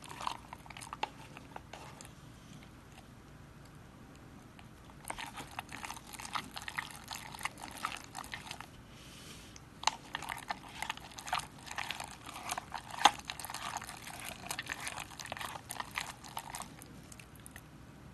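A wooden stick stirring thickening glue-and-starch slime in a plastic cup: sticky wet squelching and clicking, with the stick scraping the cup. It is quiet for the first few seconds, then comes in two spells, about five seconds in and again from about ten seconds in until near the end.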